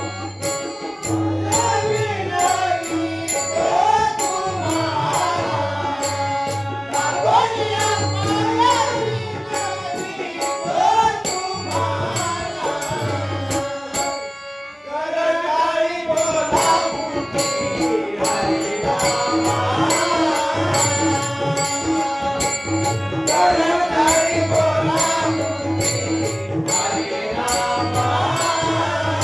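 Marathi devotional abhang sung by a male voice with tabla accompaniment, over a steady held drone and a regular beat of sharp high clicks. The singing drops out briefly about halfway through.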